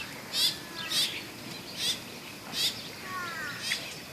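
Bird calls: a series of about five short, sharp high chirps, with a few quick falling whistled notes about three seconds in.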